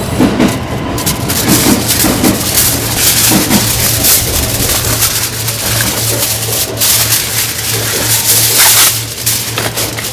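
Aluminium foil crinkling and crackling in an irregular run as an ear of corn is wrapped in it.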